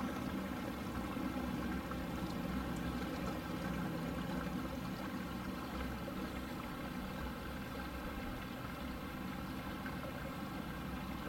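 Airliner engines running on the runway: a steady drone with a stack of even tones, easing off slightly toward the end.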